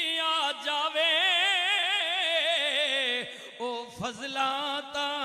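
A man singing Punjabi devotional verse into a microphone, drawing out one long note with a strong wavering vibrato. A little over three seconds in the note breaks off, and shorter sung phrases follow.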